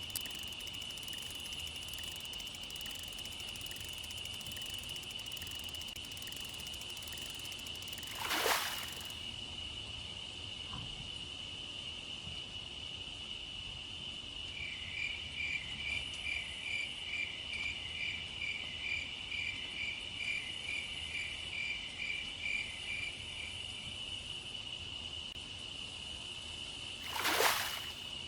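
Crickets calling in a steady high trill. Through the middle a second call of quick pulses, about two or three a second, joins in, and two brief whooshes come through, one about a third of the way in and one near the end.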